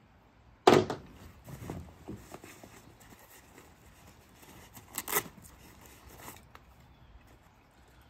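Hands handling gear in a nylon backpack pocket: a metal sillcock key being stowed and items rummaged through, with a sharp knock about a second in and scattered rustles and clicks, another burst of handling about five seconds in.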